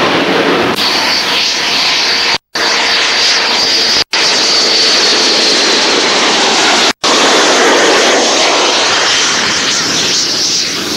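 Jet engine of a BAe Hawk trainer, its Adour turbofan on approach and landing with gear down: a steady loud rush with a high whine coming in about a second in. The sound drops out completely three times for an instant.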